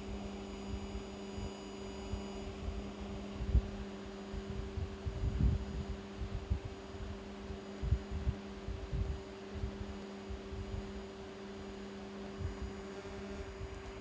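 Steady electrical hum on two pitches, the lower one dropping out near the end, under irregular soft low bumps from hands turning the cavity frequency meter on the waveguide bench.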